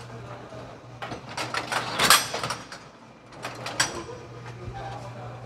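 Automated walnut-manju baking machine running: its hinged metal mold plates click and clatter as the conveyor moves them along, over a steady low hum. The loudest clatter comes about two seconds in, with another bunch of clicks near four seconds.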